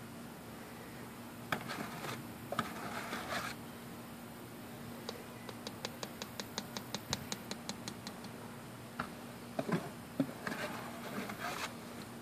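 Wet, chunky meat bait being scooped from a plastic bucket into small jars: scraping and squelching bursts, with a quick run of about twenty light taps, around five a second, in the middle.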